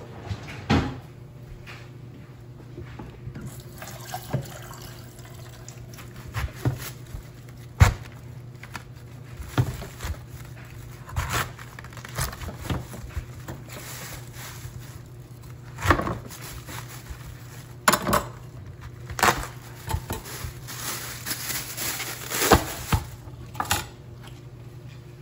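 Chef's knife cutting through a head of green cabbage on a plastic cutting board: irregular crunches of the blade through the leaves and sharp knocks of the knife on the board.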